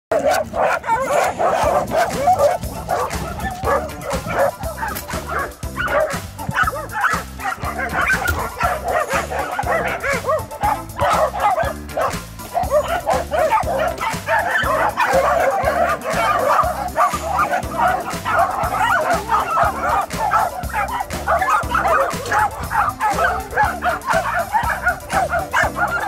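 A pack of Welsh Corgis barking together, many overlapping calls, over background music with a steady beat.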